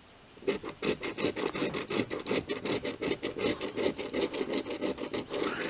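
A coin scratching the coating off a scratch-off lottery ticket in quick, repeated raspy strokes, starting about half a second in.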